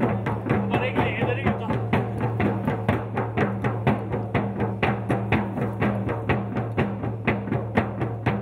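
Music: a fast, even drum beat of about four to five strokes a second over a steady low drone.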